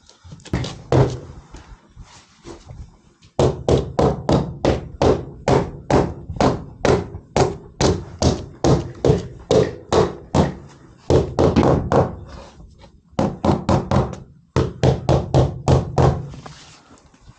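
Hammering on wall board: a long run of quick, evenly spaced knocks, about three a second, that stops briefly and picks up again for a shorter run.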